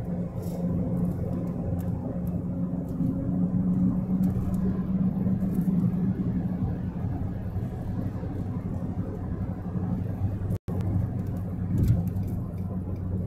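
Car cabin noise while driving: the engine and tyres make a steady low drone. The sound breaks off for a moment about ten seconds in.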